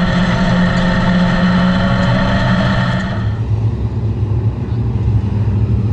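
Dirt-track race car engine running at high revs, then the revs drop about halfway through and it settles into a lower, steady note.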